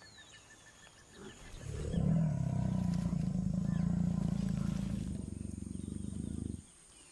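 Jaguar growling: one long, low, rough growl that builds about a second and a half in, holds for about five seconds and cuts off sharply.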